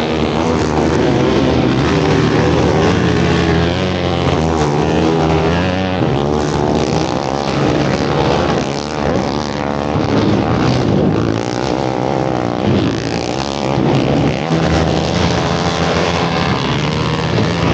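Several racing quad (ATV) engines running hard at once, their pitch rising and falling continuously as they accelerate and back off around the dirt track.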